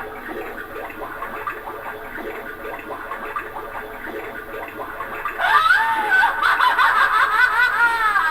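A Fright Light flashlight's built-in sound effects playing through its small speaker: a recorded cackling laugh, then, about five seconds in, a louder effect of quickly repeated arching, wavering tones.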